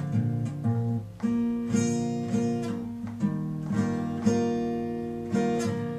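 Acoustic guitar played solo, chords strummed at an unhurried pace with each chord left to ring into the next.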